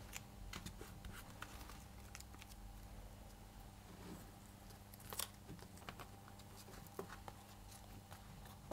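Faint handling sounds of parchment paper and tape as a sheet is taped down onto a lino block: soft rustles and a few light clicks and ticks, the sharpest about five seconds in.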